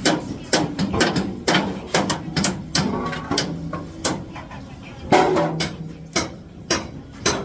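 Hammer blows on aluminium formwork, striking roughly twice a second at an uneven pace, each a sharp metallic knock, over a low steady hum.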